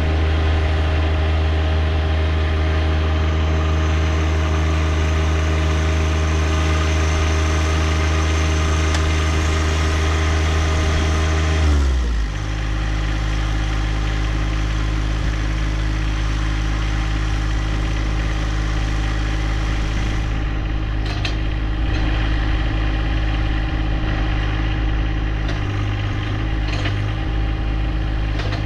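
John Deere 1025R compact tractor's three-cylinder diesel engine running steadily at high revs, then dropping to a lower speed about twelve seconds in and running on there. A few light clicks come through late on.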